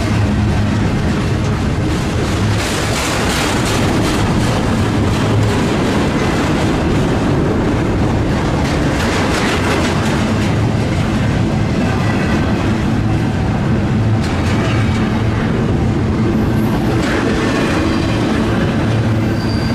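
Train rolling past at close range: a steady rumble with wheel clatter over the rail joints.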